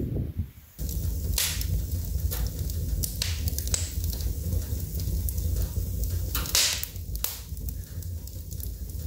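Wood fire burning in a wood-burning stove, crackling steadily with sharp pops and snaps, several of them louder than the rest; it starts suddenly about a second in, after a brief low rumble.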